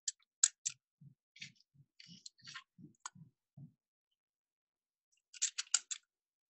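Hand-cranked circular sock knitting machine being advanced forward: light metal clicking with soft low knocks about three times a second, stopping a little past halfway. Near the end comes a quick run of sharp clicks as the needles are handled.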